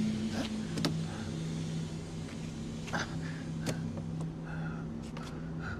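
A steady low mechanical hum, like a vehicle engine running, with a few sharp clicks and knocks scattered through it.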